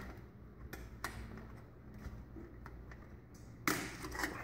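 Small scattered clicks and taps of plastic lampholders being slid into the sheet-metal end of an LED T8 fixture housing, with one louder knock near the end.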